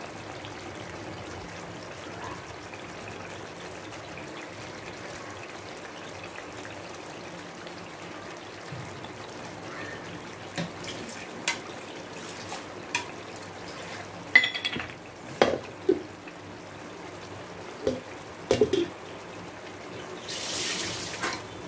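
Curry masala gravy simmering in a pan, bubbling steadily, with scattered sharp pops of bursting bubbles in the second half and a short hiss near the end.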